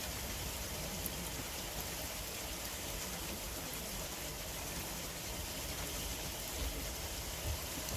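Wood bonfire crackling and hissing, with a few sharp pops scattered through a steady hiss.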